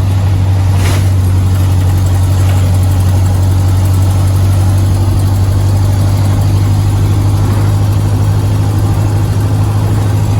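Ford Model A's four-cylinder flathead engine running steadily at a low drone while driving, heard from inside the car. There is one sharp knock about a second in.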